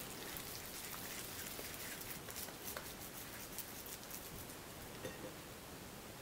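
Faint, soft handling sounds of hands shaping minced pork into a cutlet and rolling it in flour, with a few small clicks and taps.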